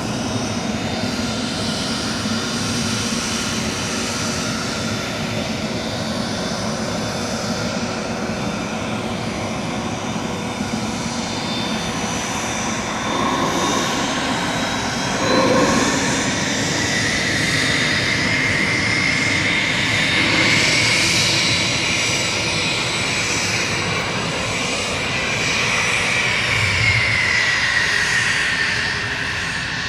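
Twin Williams FJ44 turbofans of a Cessna Citation CJ2 business jet running with a steady whine. The whine climbs in pitch about halfway through, holds, then falls near the end.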